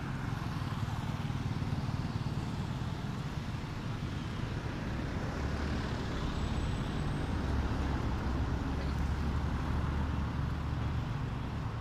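Low, steady rumble of a motor vehicle's engine running, growing louder about halfway through and easing near the end.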